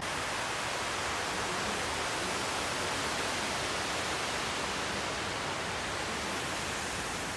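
Steady rush of water falling down the walls of a 9/11 Memorial reflecting pool, an even, unbroken hiss.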